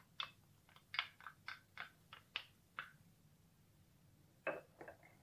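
Wooden spoon knocking and scraping against a small ceramic spice bowl, about nine faint, quick taps, knocking garam masala out into the mixing bowl. Near the end come a few more light clinks as the bowls are handled.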